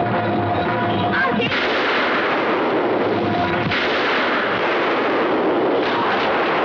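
Dense, continuous gunfire from a film action soundtrack, beginning about a second and a half in and running on as rapid shots that merge together. Background score with steady tones comes before it.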